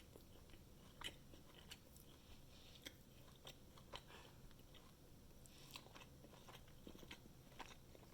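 Faint chewing of a mouthful of breaded fried chicken sandwich, with soft, irregular crunches from the breading.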